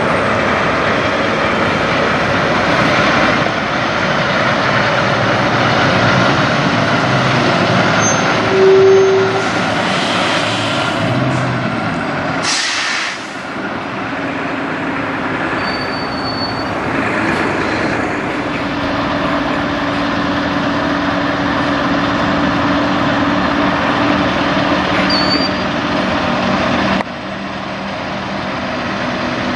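Kenworth W900 semi trucks' diesel engines running steadily as the rigs pull out with flatbed trailers. A brief tone sounds about nine seconds in, and air hisses of the kind made by air brakes come a little before and after ten seconds.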